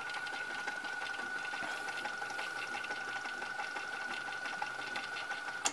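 Early-1980s Hitachi top-load VCR mechanism running in play with a steady motor whine over fine rapid whirring, then a couple of clicks near the end. The tape is not advancing, which the owner puts down to a missing or failed capstan drive belt.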